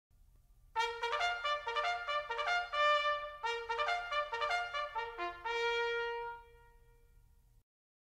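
A short brass fanfare for the logo intro: two runs of quick notes, ending on a held note that fades out.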